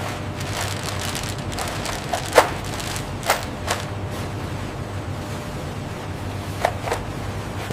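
Steady machinery hum with a handful of sharp clanks: one loud hit about two and a half seconds in, two more a second later, and a quick pair near the end.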